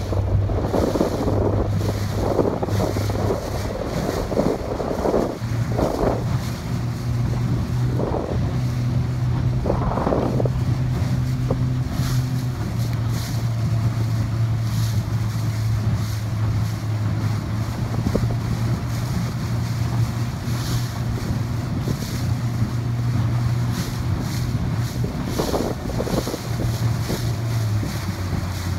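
Wind buffeting the microphone and water rushing past a moving boat, over the steady low hum of an outboard engine. The gusts are heaviest in the first half.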